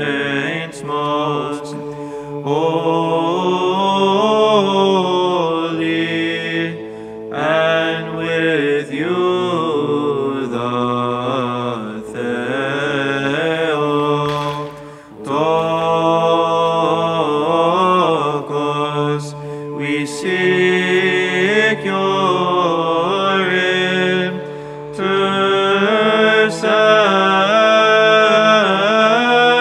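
Byzantine chant: a slow, winding sung melody over a long low note held beneath it (the ison), with short breaks between phrases.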